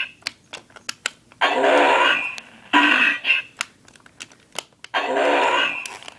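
Talking Transformers Bumblebee robot toy playing its recorded electronic voice phrases through its small built-in speaker, three short phrases in a row. Sharp clicks and knocks come between the phrases.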